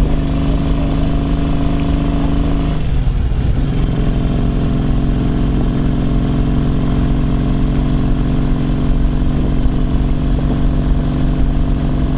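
Brough Superior SS100's JAP V-twin engine running under way on the road. It eases off briefly about three seconds in, then pulls steadily again.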